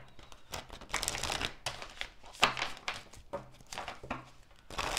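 Tarot cards being shuffled by hand: a string of irregular papery rustles and light clicks as the cards slide and knock against each other.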